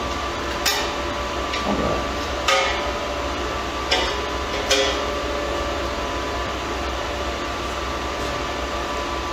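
A few sharp metallic taps and scrapes, four clear strikes in the first five seconds, as a hand tool cleans slag off the edge of a plasma-cut steel plate. A steady shop hum with a faint whine runs under them.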